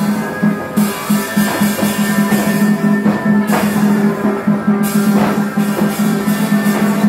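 Tuồng theatre ensemble music: a sustained low instrument tone pulsing in a quick even rhythm, with melodic instrument lines above it.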